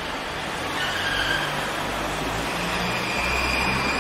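City street traffic noise, a steady wash of road sound, with a vehicle's engine growing louder from about a second in. A few faint high-pitched tones sound over it.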